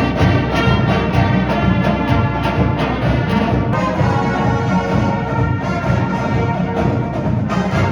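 High school marching band playing: brass over a steady drum beat.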